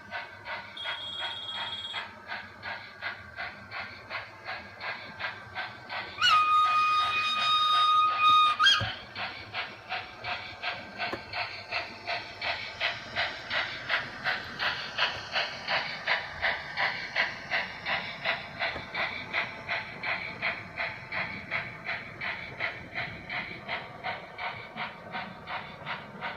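Steam-locomotive sound from a model train: steady exhaust chuffs, about three a second, with a loud whistle blown for a couple of seconds about six seconds in.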